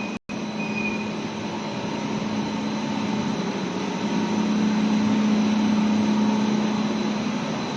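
A 15 t/h biomass-fired steam boiler plant running: a steady machinery hum and rush, with a droning tone, growing a little louder midway. The sound cuts out for an instant just after the start.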